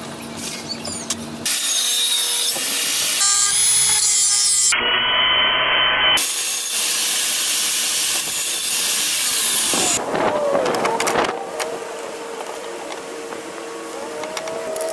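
Woodworking shop noise cut together from several clips: a jobsite table saw running loudly through most of the first two-thirds, changing abruptly at each cut. After that comes quieter rubbing and scraping of wood by hand, with scattered knocks and a steady hum.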